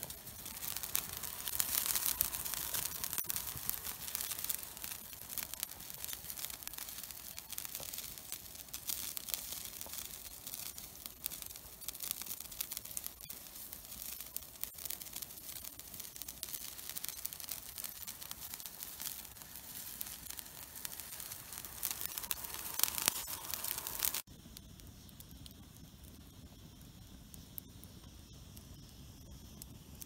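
Wood campfire crackling densely, a constant stream of sharp pops and ticks over a hiss. About 24 seconds in it cuts off suddenly to a much quieter, softer hiss.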